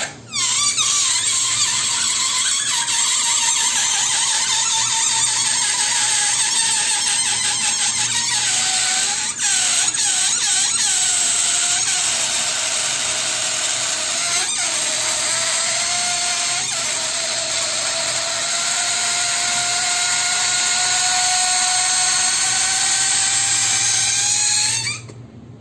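Electric balloon pump running steadily as it inflates a balloon, a hissing rush of air with a whining tone that slowly falls in pitch. There are a few light taps midway, and it cuts off sharply near the end.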